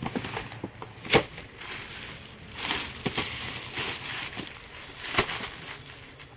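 Clear plastic garment packet crinkling and rustling as a folded suit is pulled out of it and handled, with two sharp knocks, one about a second in and one near the end.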